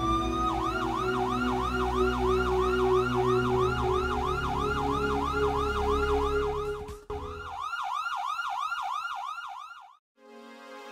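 Ambulance siren sound effect: a wail that switches to a fast yelp of about four sweeps a second, over background music. The music drops out about three quarters of the way through, and the siren cuts off shortly before the end.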